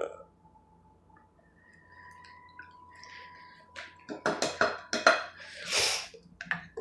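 Kitchen handling sounds from measuring vegetable oil into a glass mixing bowl: after a few quiet seconds, a quick run of knocks and clinks of the measuring cup against the bowl and whisk, with a short rustling scrape.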